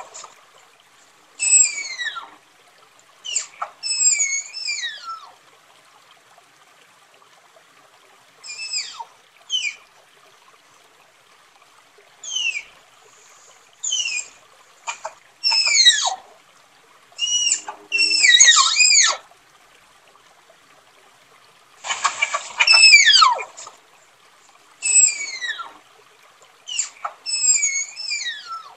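Tapir calling: a series of high, steeply falling whistles, each under a second long, some coming in quick clusters, repeated at irregular intervals.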